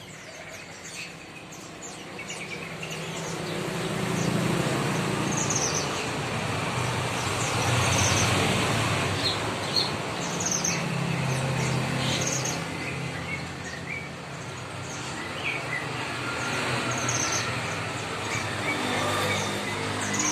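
Many wild-caught songbirds kept together in a communal cage, chirping as a group: short high chirps recur every second or so. A steady low rumble runs underneath.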